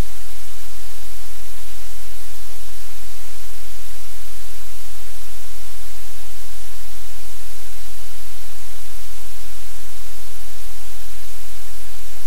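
Loud, steady electronic static: an even hiss from low to very high pitch over a constant low hum, unchanging throughout, drowning out any room sound.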